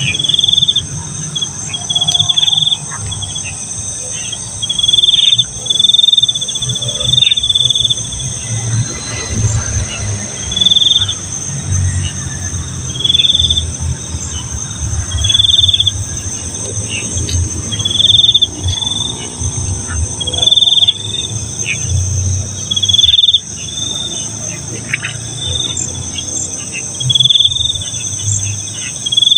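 Night insect chorus: a steady high shrill of crickets, with one louder insect giving a short chirp every one to two seconds. Underneath are low, irregular thuds of footsteps walking.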